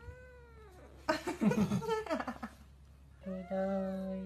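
Orange-and-white kitten yowling and growling over food held in a hand. A short rising-and-falling meow comes first, then a rough, noisy growl about a second in, and near the end a long steady low yowl.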